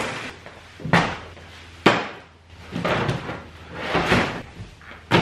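Three sharp knocks in the first two seconds, then two longer scraping or rustling swells, and another sharp knock near the end.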